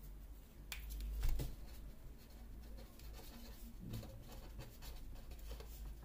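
Felt-tip marker writing on a sheet of paper: faint, scratchy strokes, with a light knock about a second in.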